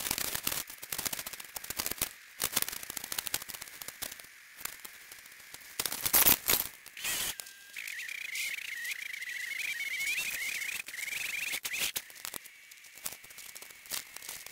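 Snow shovel scraping and crunching into packed snow, with crunching footsteps in deep snow; the loudest crunches come about six seconds in. A faint wavering high whine runs for a few seconds past the middle.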